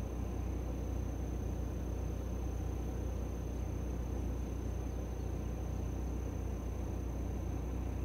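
Steady wind rumble on the microphone, with a thin, steady high-pitched tone running through it.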